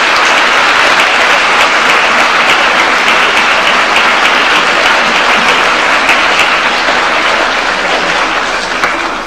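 Large audience applauding steadily in a conference hall after a speech, dying away near the end.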